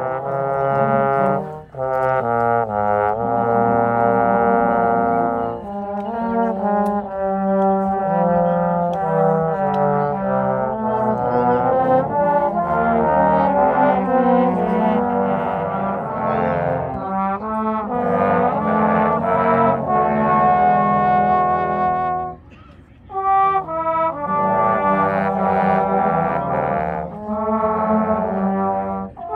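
Trombone choir playing, several trombones sounding held notes together in chords. The music breaks briefly about two seconds in and again a little past twenty seconds.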